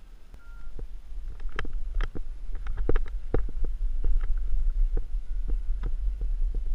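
Irregular knocks and rattles from a mountain unicycle rolling over a rough dirt trail, picked up by a GoPro riding on it, over a steady low rumble. The knocks start about a second in and come thicker and louder from there on.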